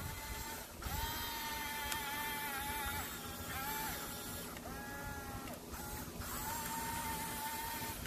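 Electric drive motors and gearboxes of a toy RC bulldozer whining in several spurts as it drives its tracks. Each spurt rises in pitch as it starts and falls away as it stops.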